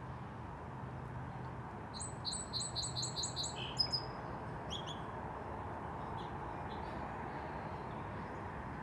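A small songbird singing: a quick run of about seven repeated, downward-slurred notes about two seconds in, then a few single chirps, over a steady low background hum.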